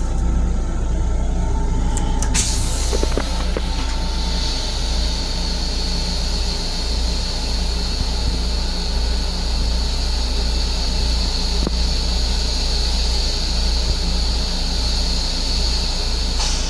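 Flush cycle of an M7 commuter railcar's toilet: a steady hiss starts about two seconds in, runs for some fourteen seconds and then cuts off suddenly, over the low steady rumble of the moving train.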